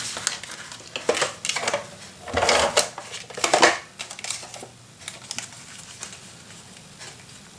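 Paper being worked on a craft cutting tool: two short scraping strokes a little over two and three and a half seconds in, with light clicks and taps of the tool and paper around them.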